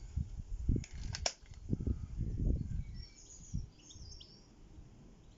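Slavia ZVP break-barrel air pistol being handled and loaded: low knocks and two sharp clicks about a second in. Birds chirp faintly in the background a few seconds in.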